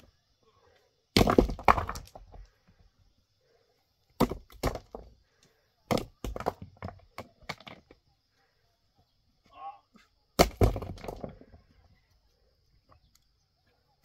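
Rock being broken by hand: clusters of sharp cracking blows on stone, each with a short trailing clatter. The loudest strikes come about a second in and again about ten seconds in.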